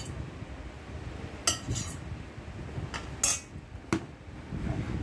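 Metal utensil clinking and scraping against a plate while food is arranged on it, with a few sharp clinks spread through, the loudest about three seconds in.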